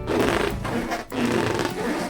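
Latex balloons being rubbed together, in strokes about a second long with a short break between them.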